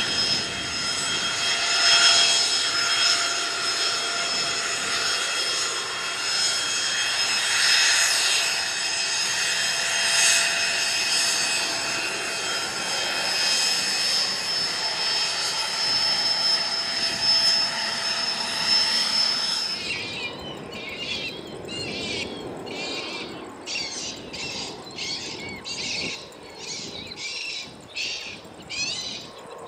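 Learjet 45XR's twin Honeywell TFE731 turbofans running at taxi power, a steady high-pitched whine. About two-thirds of the way in the jet sound cuts out abruptly, and a quieter repeated chirping, about two pulses a second, takes over with the jet faint beneath it.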